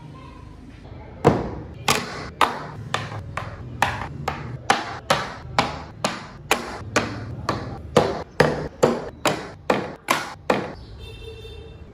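A carving mallet strikes a chisel into wood about twenty times in a steady rhythm of roughly two blows a second. The blows start about a second in and stop near the end.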